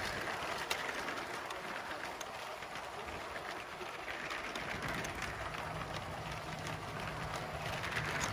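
A 1:48-scale LEGO model train running on plastic LEGO track, its wheels rolling with a steady rattle and many small clicks over the rail joints. A low steady hum joins about halfway through.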